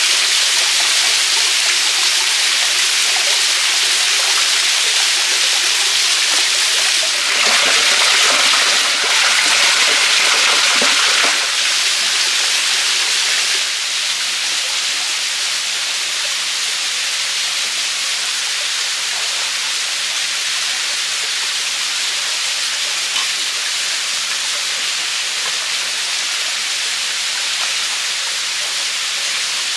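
Small waterfall pouring into a rocky forest pool: a steady rush of falling water. It swells louder for a few seconds in the first half, then settles a little quieter.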